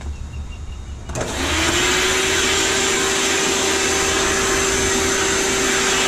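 Vacuum cleaner switched on with a click about a second in, its motor spinning up quickly to a steady pitch and then running with a loud, even rush of suction.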